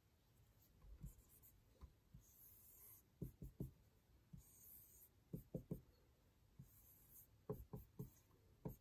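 Faint scratching of a marker pen drawing circles, with clusters of short taps as dots and crosses are marked, mostly in the second half.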